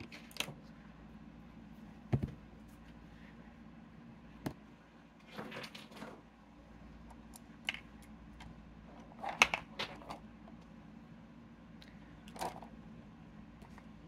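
Scattered light clicks, taps and rustles of makeup items being handled, such as a brush and eyeshadow palette, with a sharper knock about two seconds in and a cluster of clicks past the middle, over a low steady hum.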